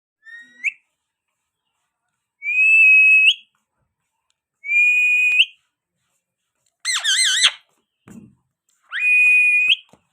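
Parrot whistling: long, clear, level whistled notes that each flick up in pitch at the end, repeated about every two seconds, with a quick warbling trill between the third and fourth notes.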